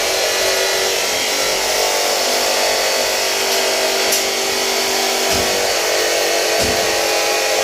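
A motor-driven machine running steadily, a constant whine with a hiss.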